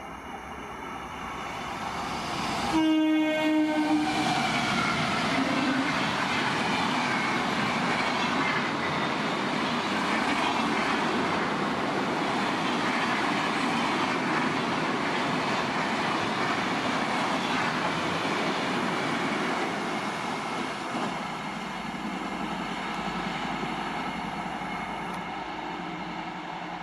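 Electric-locomotive-hauled Indian Railways express train passing at high speed: a short horn blast about three seconds in, then a long steady rush of the coaches' wheels on the rails that slowly fades near the end.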